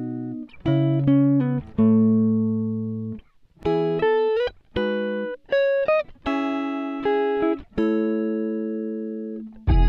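Background music: a slow melody of plucked notes that ring out and fade, with short gaps between phrases.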